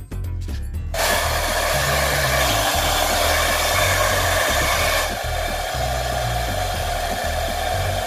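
Handheld hair dryer blowing steadily on hair. It starts suddenly about a second in and gets a little quieter about five seconds in. Background music with a low bass line plays underneath.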